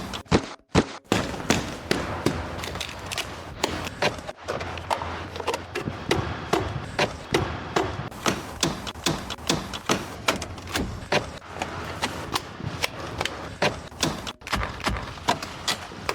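A rapid run of sharp knocks and taps, about two to three a second, over a low steady hum, broken by brief cuts.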